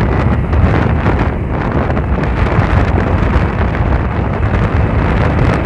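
Heavy wind buffeting on a phone microphone while riding a TVS Apache RTR 160 4V motorcycle at speed, with the bike's single-cylinder engine running under load in third gear underneath. The rider says the engine is intermittently losing power ("power missing") at this point.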